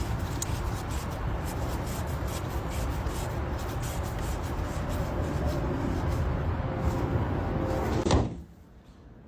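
Steady rumbling background noise, then a single loud slam about eight seconds in, after which it goes quiet.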